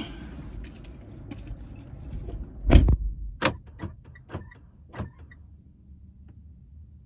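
A car door shuts with a heavy thump about three seconds in, heard from inside the closed cabin, followed by a few fainter clicks and knocks, over a low steady rumble.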